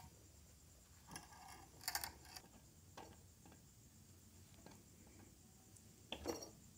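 Faint, scattered metal clicks and taps from hand-working small steel parts at a bench vise: a T-handle tap wrench, then a small ball bearing handled and fitted onto a shaft. The loudest little clatters come about two seconds in and near the end.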